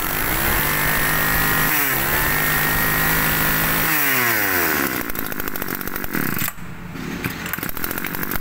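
Small two-stroke engine of a 20cc Tanaka brush cutter revved up twice, each time held high for a second or two before the revs drop. After about four seconds it settles back to a lower, uneven idle.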